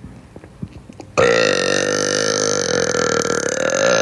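A woman's deliberate burp: one long, loud belch that begins suddenly about a second in and holds a steady pitch for about three seconds.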